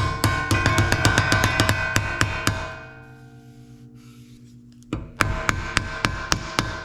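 Hammer striking a steel sheet clamped in a wooden buck, about four or five ringing blows a second as the panel is hammer-formed. The blows pause for about two seconds midway while the ring dies away, then start again.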